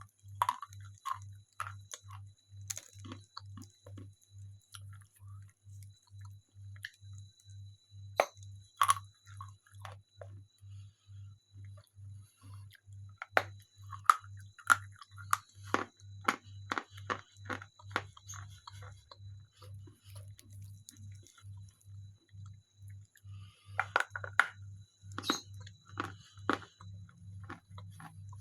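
Chalk being bitten and chewed: crisp crunches and crackles that come in clusters, with quieter gaps between bites.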